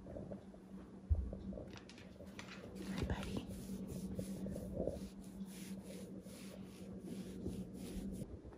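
A hand stroking a greyhound's short coat close to the microphone, a soft rubbing and handling noise that repeats over and over, with a low bump about a second in.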